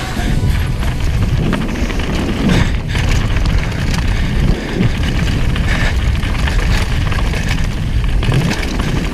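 Downhill mountain bike ridden fast down a rocky gravel trail: a steady rush of wind on the microphone, with tyres crunching over loose stones and the bike clattering and rattling over bumps.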